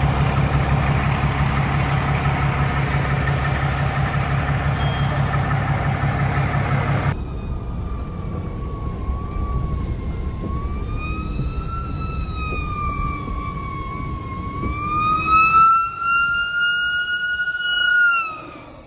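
A fire truck's engine running loud and close. After a cut, a siren wails, its pitch rising and falling unevenly and climbing highest and loudest near the end before it dies away.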